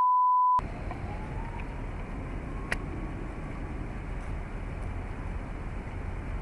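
Broadcast line-up test tone: a steady 1 kHz beep over colour bars, cut off abruptly about half a second in. It is followed by a steady outdoor background of low rumble and hiss, with one sharp click a little under halfway through.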